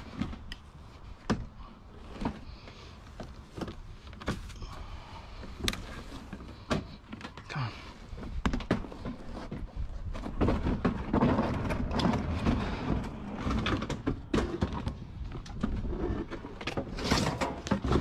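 Clicks, knocks and clatter of hard plastic and sheet metal as a discarded washing machine is handled. The knocks are sparse at first and turn busier and louder about halfway through.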